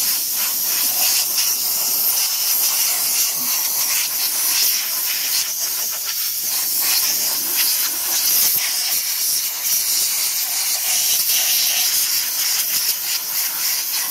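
Compressed-air blow gun with a long, flat-tipped radiator nozzle hissing loudly and steadily as it blows water off a freshly washed small engine.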